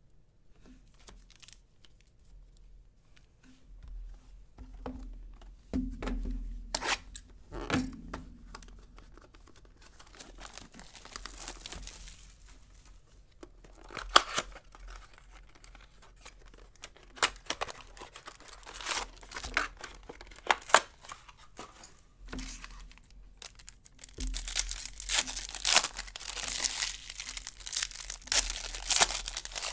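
Hands tearing open and crinkling the wrapping of a baseball card box and its packs, with scattered handling clicks and rustles and a sharp knock about halfway through. Near the end the crinkling turns dense and continuous as a pack wrapper is pulled apart.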